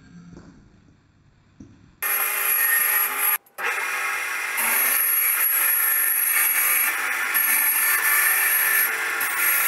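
Band saw ripping a sheet of 3 mm plywood, the blade screeching with a high, steady squeal. It starts suddenly about two seconds in, after a quiet stretch, and breaks off very briefly a moment later.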